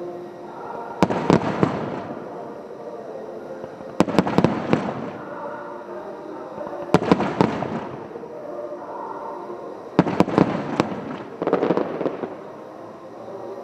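Aerial fireworks shells bursting: clusters of sharp bangs with a rolling rumble after each, about every three seconds. Steady music plays underneath.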